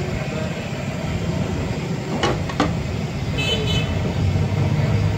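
Steady street traffic with a low engine rumble, two short knocks a little past the middle, and a brief high-pitched horn toot about three and a half seconds in.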